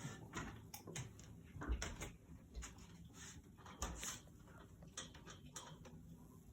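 Scattered light clicks, knocks and rustles of things being handled and put away, with a couple of dull thumps about two and four seconds in.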